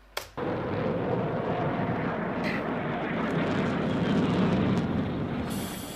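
Jet aircraft flying past in formation: a steady engine rumble that starts abruptly a moment in, swells a little and fades near the end.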